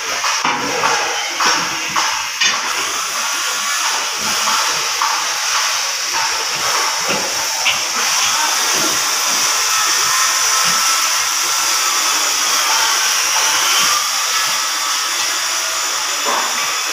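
Construction-site noise: a steady high hiss, with scattered knocks and clanks in the first few seconds.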